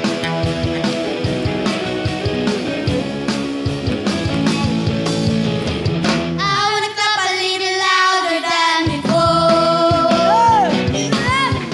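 Upbeat song accompaniment with guitar and a steady beat, then about six seconds in a children's choir starts singing over it, the low instruments briefly dropping out as the voices enter.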